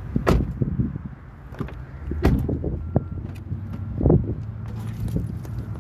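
Low, steady rumble of road traffic and wind on the microphone, broken by three loud thumps: near the start, about two seconds in, and about four seconds in.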